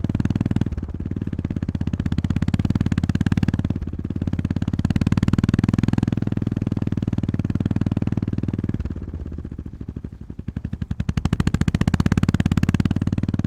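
Honda GB350S single-cylinder engine running under way, its exhaust beat steady. About nine seconds in the throttle is eased off and the engine quietens for a couple of seconds before pulling strongly again.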